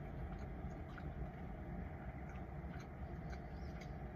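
Steady low rumble inside a parked car, with faint small clicks scattered through it.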